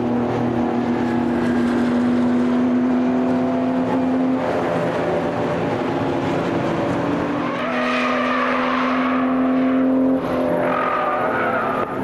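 Race car engines running steadily. A second, higher wavering note comes in about eight seconds in and again briefly near the end.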